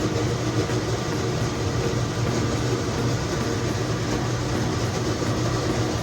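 Steady rushing noise with a low hum from a stovetop steamer at a boil, steaming whole ducks.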